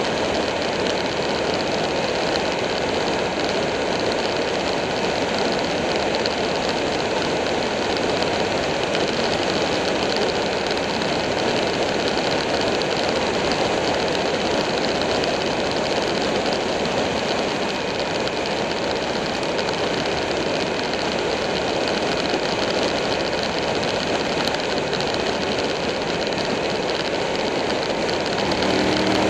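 Buell 1125R motorcycle cruising steadily at road speed: a constant rush of wind over the microphone mixed with the drone of its V-twin engine.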